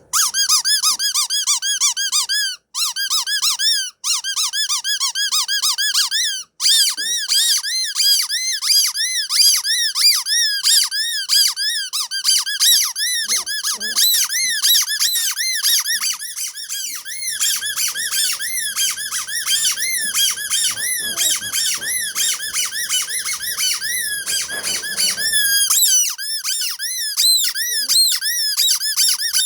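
Rapid, continuous high-pitched squeaks, about three or four a second, each rising and falling in pitch, with a few very short cuts to silence in the first seven seconds.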